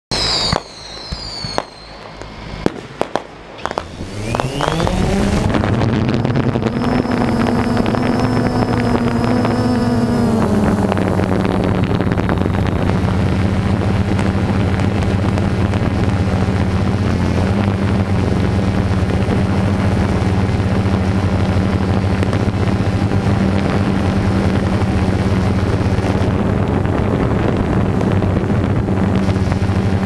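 Firework bangs and crackles with a falling whistle, then a DJI Phantom 2 quadcopter's motors spin up, rising in pitch about four seconds in. The propellers settle into a steady, loud hum close to the GoPro microphone, dipping slightly in pitch about ten seconds in, with the fireworks going on underneath.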